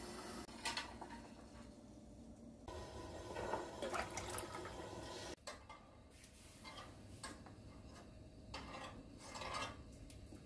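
Faint kitchen sounds around a stainless steel pot of milk on a gas stove: scattered light clinks and knocks of pot and utensils, with some liquid sounds. The sound changes abruptly twice.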